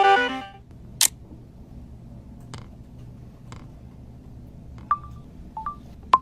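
Smartphone system sounds: the last notes of a marimba-like ringtone fade out. Then a sharp click about a second in, two fainter clicks, and three short, high blips near the end.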